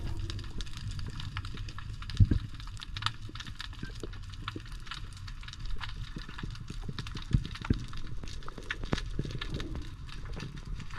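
Underwater ambience, as heard through an action camera in its housing during a spearfishing dive: a steady low rumble with irregular sharp clicks and crackles, and a louder knock about two seconds in.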